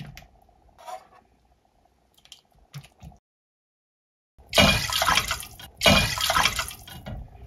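Water poured from a ceramic bowl into a pot of beef broth, splashing loudly in two long surges in the second half. Before it come a few light clinks of a metal ladle against a stainless-steel container.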